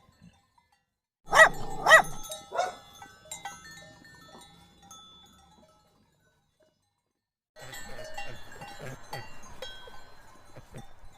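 Cowbells clanking: two loud clangs about a second in that ring out and fade, then after a short silence a busy run of smaller clanks.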